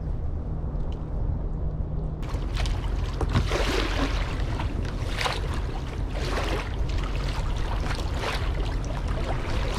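Water splashing and lapping around a kayak, in irregular bursts starting about two seconds in, over a steady low rumble.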